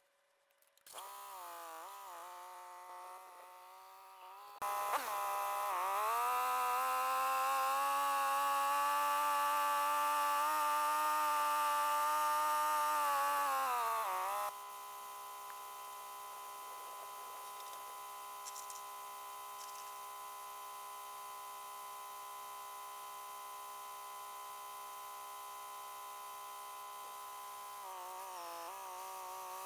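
An engine running: it speeds up about five seconds in, runs high for about ten seconds, then drops back to a steady idle, with a brief wavering of speed near the end.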